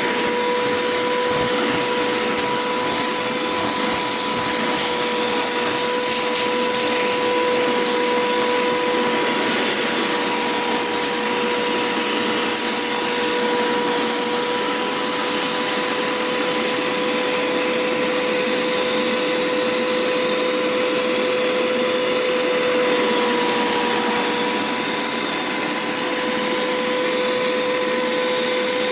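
Hoover Power Scrub Deluxe carpet cleaner running steadily, its motor giving a constant whine over the rush of suction as the upholstery tool sucks up water from a fabric couch.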